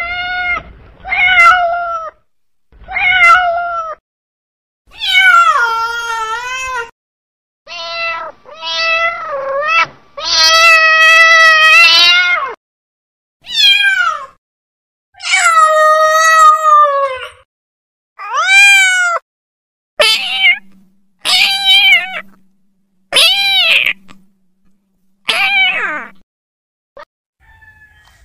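Tabby cat meowing over and over: about fourteen loud meows, some short and others long and wavering, with brief pauses between them. The calls stop shortly before the end.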